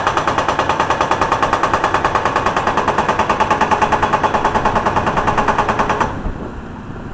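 Hydraulic breaker hammer on an excavator or backhoe pounding rapidly, about ten blows a second, then stopping abruptly about six seconds in, leaving the machine's lower engine noise.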